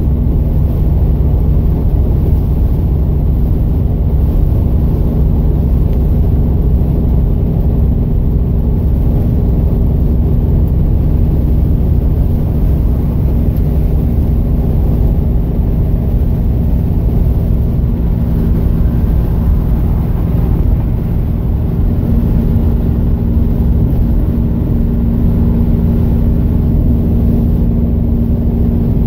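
Plymouth Scamp cruising at steady highway speed, heard from inside the cabin: a constant low rumble of engine and road noise with a steady droning hum.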